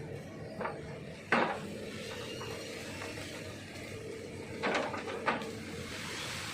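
Hitachi ZX200-5G excavator's engine and hydraulics running steadily, with sharp knocks as the bucket chops up felled oil palm trunks: one loud crack a little over a second in and two more near the end.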